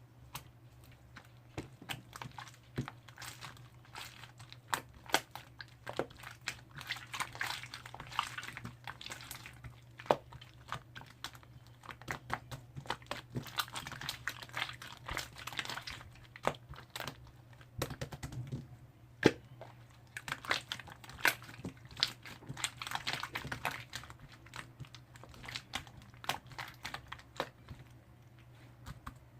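Slime being squeezed and pressed by hand: a run of irregular sharp clicks and air-bubble pops, with stretches of denser squishy crackling, over a faint steady low hum.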